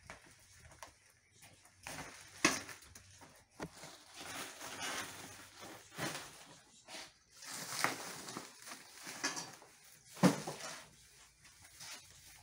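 Woven plastic sacks full of green corn cobs rustling and being handled as they are lifted off a hand cart and set down, in irregular bouts with a sharp knock about two and a half seconds in and another about ten seconds in.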